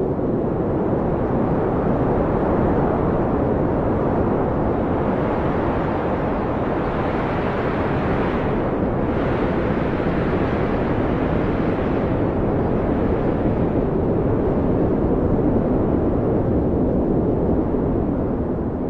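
Blizzard wind howling steadily, a dense rushing noise with a faint low moaning tone. A gust swells into a brighter hiss from about five to twelve seconds in, then eases.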